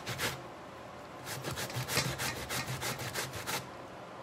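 Peeled cassava root rubbed by hand down a stainless-steel box grater, a quick rasping stroke about four times a second. A short run at the start, a pause of about a second, then a steady run of strokes that stops shortly before the end.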